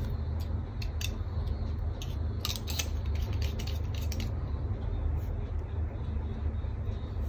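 Light clicks and taps of a Ferris Wheel Press fountain pen being handled and its cap pushed on, bunched in the first half and stopping a little after four seconds, over a steady low background rumble.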